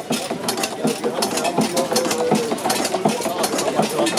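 Kappel single-cylinder stationary gas engine running steadily, its valve gear clattering in a rapid even clicking over a regular low knock that comes about every three-quarters of a second.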